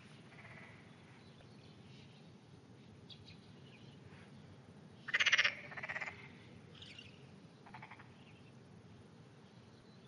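A frog croaking: one loud, rapidly pulsed call about five seconds in, a shorter, weaker one right after it, and a faint one near eight seconds.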